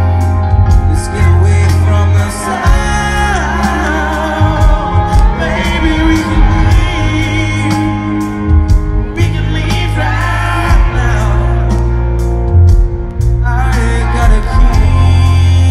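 Live rock band playing, with a male lead singer singing lines over heavy, booming bass and full band accompaniment, in a large hall.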